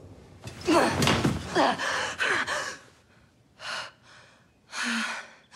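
A young woman gasping loudly, several sharp, partly voiced gasps in a row as she jerks awake, then two shorter breaths.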